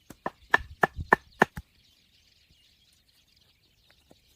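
Hardwood struck in quick succession: about six sharp wooden knocks within the first second and a half, then it goes quiet.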